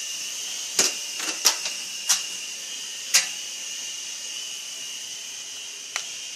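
Small electric toy RC helicopter's motors and rotors whining steadily at a high pitch. Several sharp knocks come through it, bunched in the first few seconds, with one more near the end.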